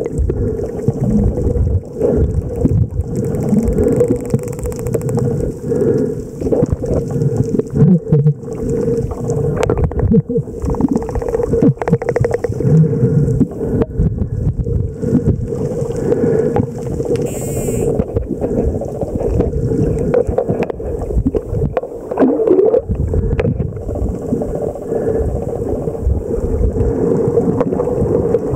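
Underwater camera audio among spinner dolphins: a steady muffled hum and rush of water, with scattered sharp clicks and one brief high-pitched sound a little past halfway.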